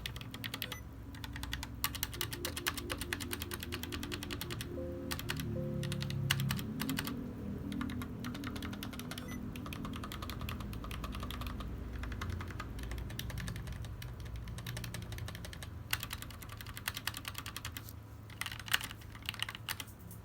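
Typing on a Tecware Phantom L low-profile mechanical keyboard with Outemu Black low-profile linear switches: fast runs of keystrokes with short pauses, thinning to a few separate presses near the end. Faint music plays underneath.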